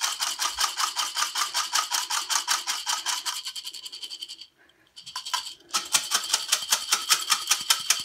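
Plastic aroma beads rattling in a lidded glass jar shaken hard by hand, a fast even rhythm of about seven strokes a second. The shaking pauses for about a second near the middle, then starts again. The jar is being shaken to dry the beads after fragrance oil and mica have been mixed in.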